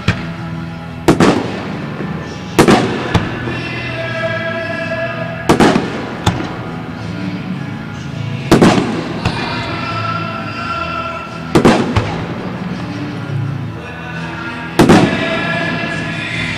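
Aerial fireworks shells bursting: six sharp booms, roughly three seconds apart, over music playing along with the show.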